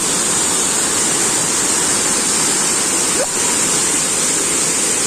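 Waterfall rushing: a loud, steady, unbroken roar of falling water.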